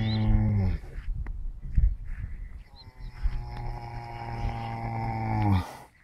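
Sleeping horse snoring: long, steady pitched snores on the breath. One dies away under a second in, and the next runs from about two and a half seconds until it drops off shortly before the end, with quieter breathing between them.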